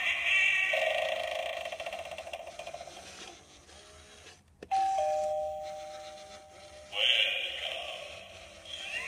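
Halloween novelty 'push to ring' doorbell: a warbling spooky sound effect fades away, the button clicks about halfway through, a two-note ding-dong chime sounds, and a new spooky sound effect starts about seven seconds in.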